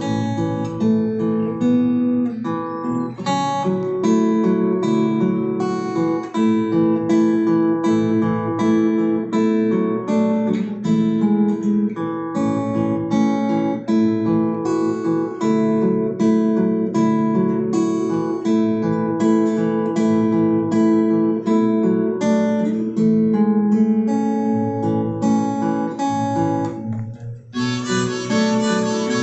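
Acoustic guitar playing an instrumental passage of plucked notes. Near the end a harmonica comes in over it.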